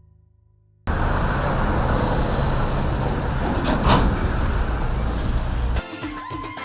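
A loud, steady rumbling noise like road traffic starts suddenly about a second in, with a brief louder swell near the middle, and cuts off near the end, where music with a steady beat begins.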